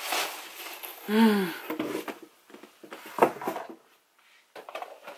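Rustling and scraping of a cardboard shipping box and its packing as a hand rummages inside it, in short patches. A brief hummed vocal sound, rising then falling, about a second in.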